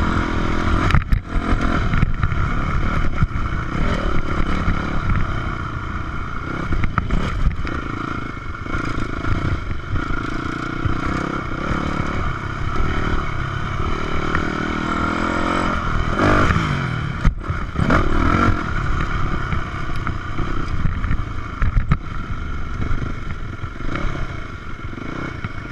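Yamaha 426 dirt bike's four-stroke single-cylinder engine under way on a dirt track, revs rising and falling continuously as the rider throttles on and off, with a sharp rise and fall in revs about sixteen seconds in and some rattle from the bike.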